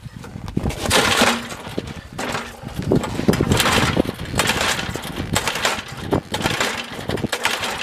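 Recoil starter on an old snowblower's small engine pulled several times in a row, each pull a rasping rope whirr as the engine turns over without catching. The owner suspects a lack of spark.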